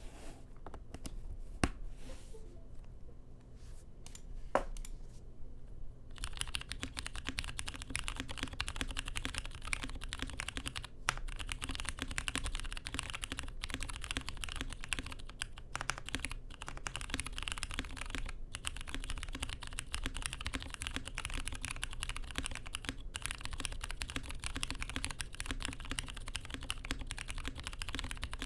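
A few separate key clicks, then from about six seconds in, steady fast typing on a KBD67 Lite custom mechanical keyboard fitted with Ergo Clear switches on a silicone "plate".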